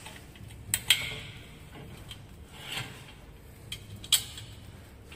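A hex key turning a screw to fix the base of an upright post to a metal bracket: scattered metal clicks and scrapes, the loudest about a second in and about four seconds in.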